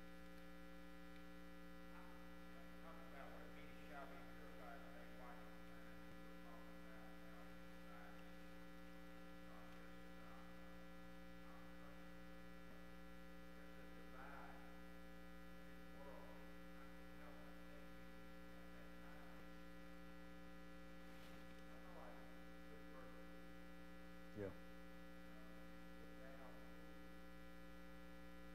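Steady electrical mains hum with many overtones, under faint, distant speech from someone away from the microphone. One short thump near the end.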